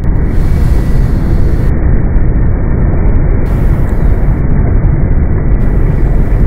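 Loud, steady low rumbling noise, heaviest in the deep bass, with no distinct events; it gets louder at the start and holds at that level.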